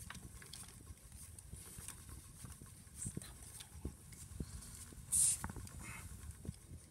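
Antique wooden spinning wheel in use, its treadle and wheel giving repeated light wooden knocks and clatter about every half second. A brief hiss comes about five seconds in.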